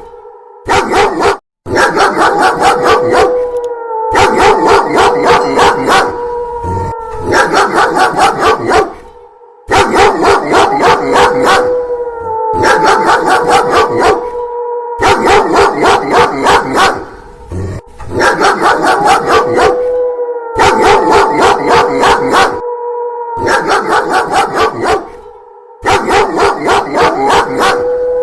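Loud, rapid dog barking in quick trains with short breaks. Over it, several times, a long wolf howl rises, holds one pitch and falls away. The barking-and-howl pattern repeats about every eight seconds, as a looped sound effect.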